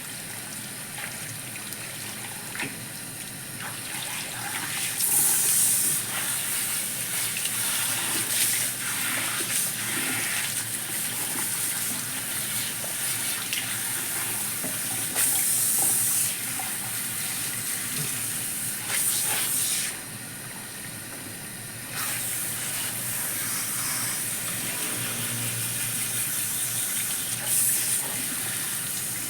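Salon shower spray rinsing hair at a shampoo basin: running water splashing steadily, with several brief louder surges and a short quieter dip about two-thirds of the way through.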